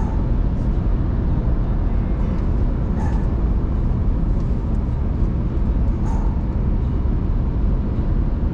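A car driving at highway speed: steady road and engine rumble.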